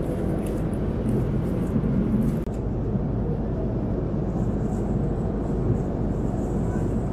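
Steady cabin noise of an Airbus A330-200 in cruise, the engine and airflow sound filling the cabin. Light crinkling of plastic food wrapping in the first couple of seconds.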